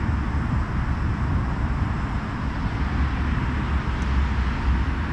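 Steady rumble of road traffic, a constant low drone with a hiss over it.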